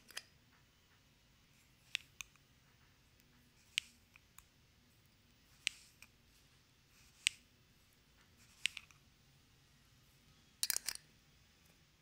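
A metal lid is lifted off a glass sugar jar, then a metal spoon clinks against the jar as sugar is scooped. There is a sharp clink every second or two, with a quick run of several clinks near the end.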